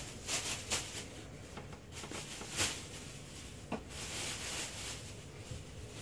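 Handling noise: a series of short rustles and light knocks, with a longer rustle about four seconds in, as a box spring and a plastic trash bag are handled.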